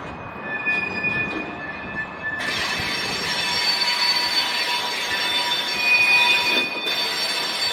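Freight wagons rolling through a hump yard, their steel wheels squealing in several steady high tones as the rail brakes (retarders) grip them. The squeal and rolling hiss get louder and fuller about two and a half seconds in.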